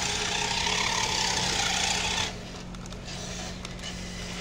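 Small electric-motor RC toy car (a Fast & Furious 1968 Dodge Charger model) driving across a tile floor, its motor whirring and tyres rolling. The sound drops off sharply about two seconds in as the car stops.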